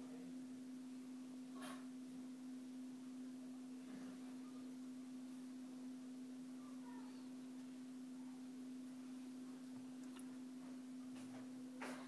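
A steady low hum at a single pitch, with a few faint, short taps scattered through it.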